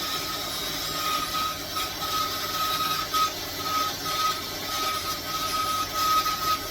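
A small motor running steadily, with a thin whine that breaks off and comes back again and again, as if a tool is being pressed into work and eased off.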